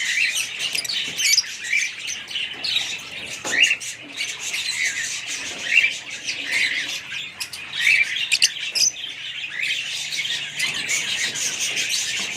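Fischer's lovebirds chattering: many short, high chirps and squawks overlapping without a break.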